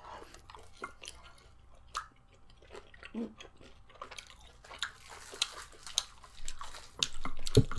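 Close-up chewing and mouth sounds of people eating, with many small wet clicks and smacks. A couple of low thumps come near the end.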